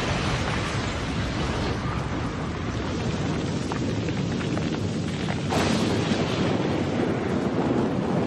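Anime sound effect of a whirling column of wind and dust: a continuous rumbling rush that swells suddenly about five and a half seconds in.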